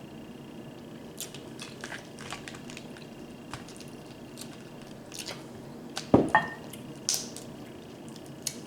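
Wet squishing and clicking of hands and mouths working through a sauce-covered seafood boil close to the microphone, with a louder knock about six seconds in.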